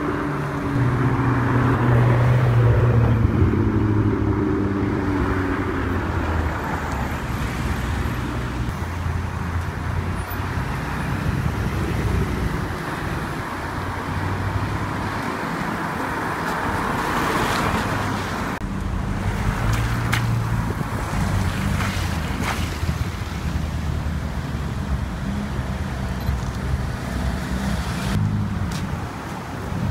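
Cars driving past at low speed on a wet street, engines running, including Audi R8 supercars pulling past with a low engine drone. Tyre hiss swells about halfway through, with a few short knocks soon after.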